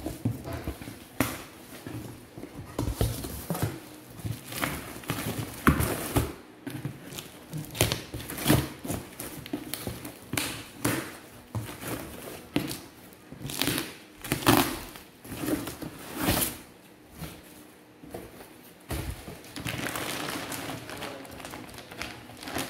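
A taped cardboard box being cut open with scissors: irregular snips, knocks and thuds as the tape and flaps are cut and pulled back. Near the end comes a longer rustle as the plastic lining inside is opened.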